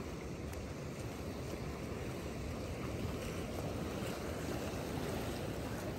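Ocean surf washing in around rocks and over wet sand, a steady rushing with a slight swell in the middle.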